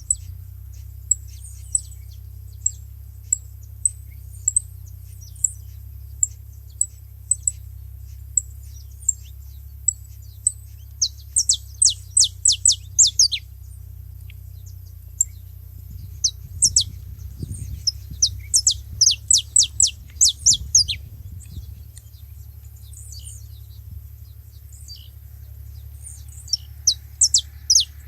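Several saffron finches calling: scattered single high chips for the first ten seconds or so, then bursts of rapid, sharp downward-sweeping notes around the middle and again near the end.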